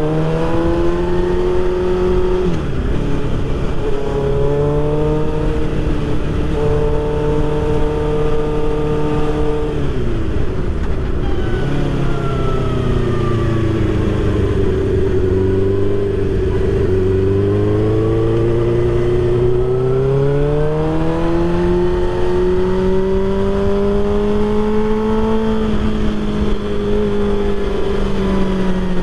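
Suzuki GSX-R1000's inline-four engine running under way, heard from the rider's seat. The engine pitch holds steady, dips a little over two seconds in and again around ten seconds in as the bike slows, then climbs steadily as it speeds up again.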